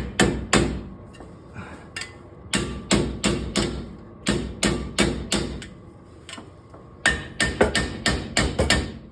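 Hammer blows on a steel chisel, metal striking metal in several quick bursts of sharp strikes. The chisel is driving the stuck, separated remnant of a blown wheel-bearing hub off a Jeep Cherokee XJ's front axle shaft.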